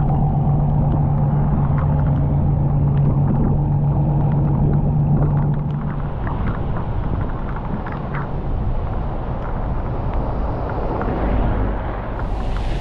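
Vehicle running, heard from inside the cabin: a muffled low rumble with a steady engine hum that fades about halfway through.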